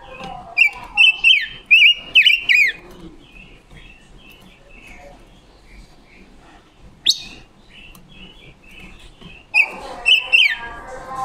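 Silver-eared mesia singing. Two bursts of loud, clear whistled phrases with falling slurs come, one just after the start and one near the end, with softer chips and a single sharp, quick note about seven seconds in between them.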